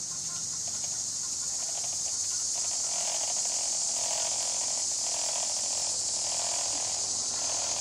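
A steady, high-pitched chorus of insects in the summer woods, swelling slightly, with softer pulsing sounds lower down about once a second.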